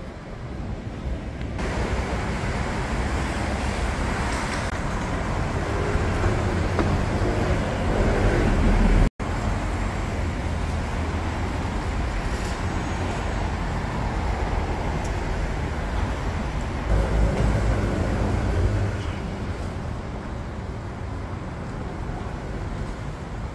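City road traffic noise: vehicles passing on a street. A passing vehicle grows louder up to a sudden gap about nine seconds in. After that comes steady traffic hum, with another vehicle passing about two-thirds of the way through.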